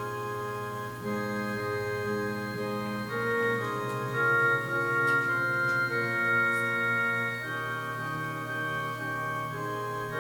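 Organ playing slow offertory music: sustained chords that change every second or so over a steady held bass note.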